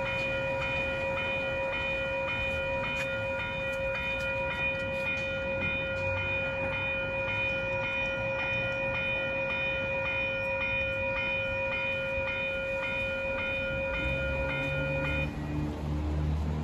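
Railroad grade-crossing warning bell ringing steadily as one sustained ringing tone with overtones, while the crossing lights flash and the gate is down. It cuts off about fifteen seconds in, as a low rumble comes in.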